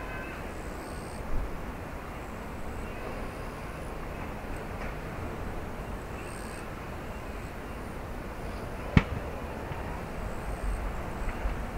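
Steady rumble and hiss of a JAL Airbus A350-900 taxiing, with one sharp click about nine seconds in.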